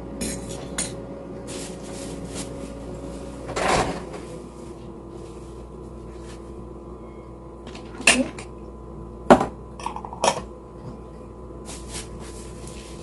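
Kitchen handling sounds: dishes and utensils knocking and clinking in scattered sharp strikes, with a longer, noisier knock about four seconds in and a cluster of sharp clinks between eight and ten seconds, over a steady low hum.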